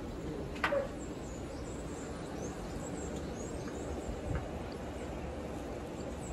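Steady outdoor background noise with faint, scattered high bird chirps and a single knock less than a second in.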